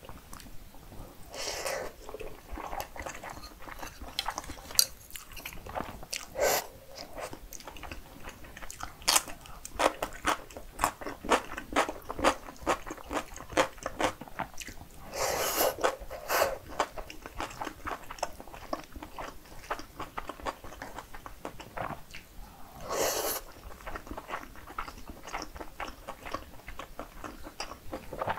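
Close-miked chewing of a mouthful of cheesy carbonara buldak fried rice: many quick, irregular mouth clicks and smacks. Three short, louder hissy bursts come about 2, 16 and 23 seconds in.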